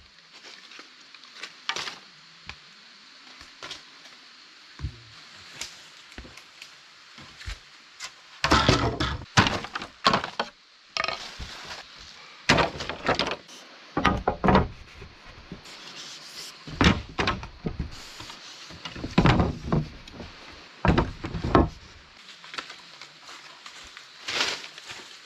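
A tool striking wood: irregular clusters of sharp knocks and chopping strikes, with quieter gaps between them.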